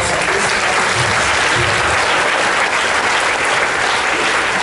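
Congregation applauding: dense, steady clapping.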